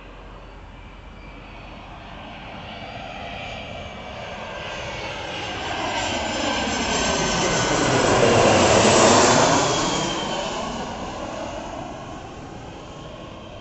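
Boeing 737's twin turbofan engines passing low on landing approach: the jet noise grows steadily louder, peaks about nine seconds in, then fades, with a whine that falls in pitch as it goes by.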